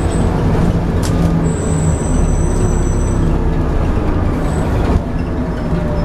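Scania N230UD double-decker bus heard from inside the passenger saloon: the steady low drone of its diesel engine and drivetrain under way, with a thin high-pitched whine for a couple of seconds about a second and a half in and a brief knock about five seconds in.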